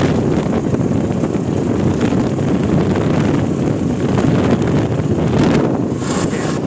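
Wind buffeting the microphone and road noise inside a moving auto-rickshaw: a loud, steady rush.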